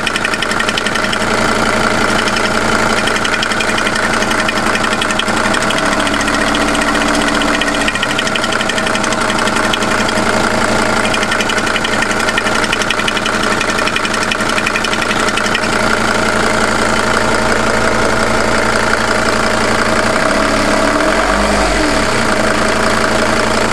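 Mercedes-Benz W210 E290's OM602 five-cylinder turbodiesel running steadily with a rapid diesel clatter. The owner suspects a knock that appeared with cold weather but cannot tell what it is, or whether it is a real fault.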